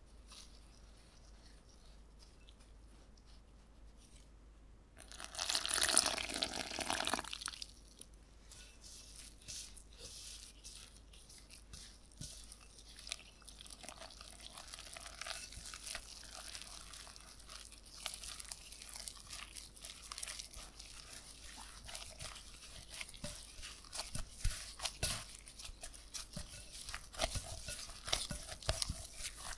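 Salt water poured into the flour in a glass bowl for about two seconds, about five seconds in. Then gloved hands mix and press the crumbly flour-butter mixture into a dough, with dense crackly squishing and crumbling and the crinkle of plastic gloves, busier near the end.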